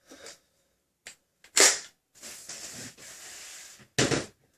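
Hard plastic clicks and knocks from a Nerf Rival Jupiter blaster being handled, its bipod folded and the blaster set down on its feet: a sharp knock about a second and a half in, a soft scraping after it, and another sharp knock near the end.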